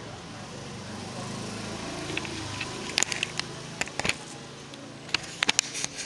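Sharp clicks and light knocks of a portable active speaker's parts being handled and fitted back together, in two quick clusters about three and five seconds in, over a steady low background rumble.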